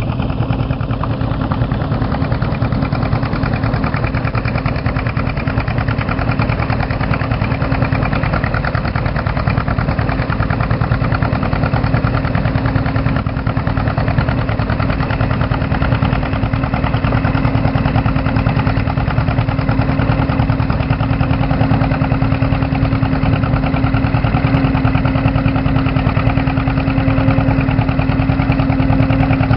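1943 John Deere H's two-cylinder engine running steadily under load while pulling a plow, with a rapid, even firing beat.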